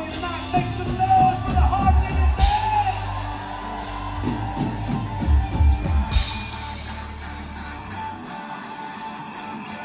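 Live rock band playing: electric guitars over bass guitar and drums. Near the end the bass and drums drop away, leaving the guitars.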